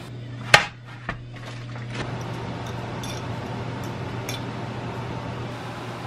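Food and serving items being set down on a wooden cutting board: one sharp knock about half a second in, a lighter knock shortly after, then a few faint taps and clinks, over a steady low hum.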